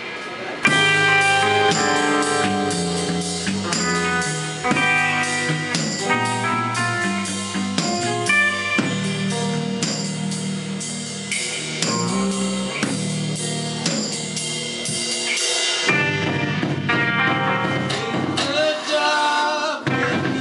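Live rock band playing: electric guitar, bass and a drum kit, heard from the audience. A voice comes in singing near the end.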